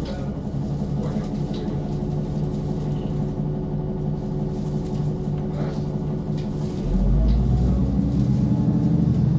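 Engine of a NefAZ 5299 city bus heard from inside the passenger cabin, running at low revs with a steady hum as the bus rolls slowly. About seven seconds in, the engine note rises and grows louder as the bus accelerates.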